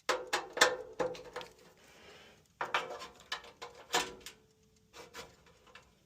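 Hand work on a furnace blower while the failed capacitor is swapped: small clicks, taps and rubbing of parts and wire terminals being handled, in two busy stretches, with a few faint taps near the end.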